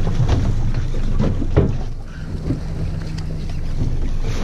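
Boat's outboard motor idling with a steady low hum that drops out briefly near the start and comes back, over wind on the microphone. One sharp knock about a second and a half in.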